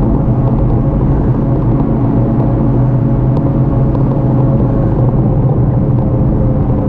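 Steady low rumble of an e-bike ride heard on a bike-mounted camera: wind and road noise, with a steady low hum running under it.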